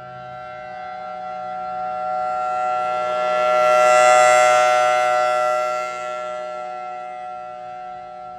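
Federal Signal Thunderbolt 1003A2 dual-tone outdoor warning siren sounding a steady two-note wail at full speed. The sound swells to a peak about four seconds in and then fades as the rotating horn turns toward and then away.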